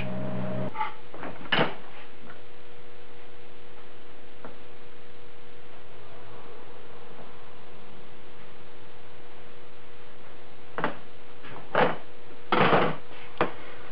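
Steady workshop hum and hiss, broken by a few short knocks and scrapes of a metal combination square and an aluminium plate being handled on a steel-topped bench, mostly near the end, the longest a brief scrape.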